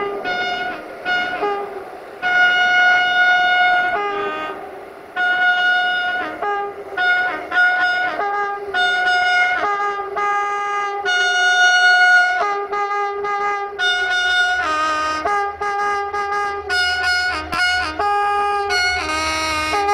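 A melody of separate held, brass-like notes at many different pitches, each starting and stopping cleanly. A low steady hum joins about two-thirds of the way through.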